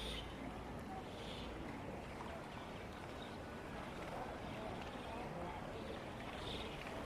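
Outdoor street ambience: a steady background wash of noise with faint, indistinct distant voices.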